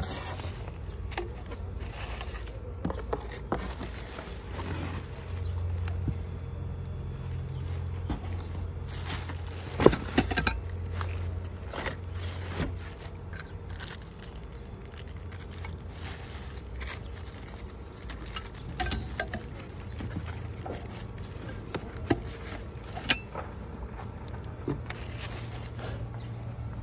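Packaging handled by hand: plastic wrap crinkling and cardboard and polystyrene scraping, with scattered sharp clicks, the loudest about ten seconds in. A steady low hum runs underneath.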